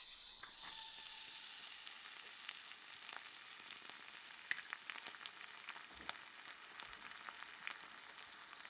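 New York strip steak sizzling fat cap down in a cast iron skillet as the fat renders out: a steady, quiet hiss with scattered small pops and crackles.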